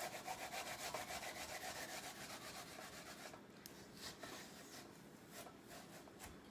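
An Asian pear being rubbed up and down a metal box grater, a faint steady run of quick rasping strokes as the fruit is grated to pulp and juice.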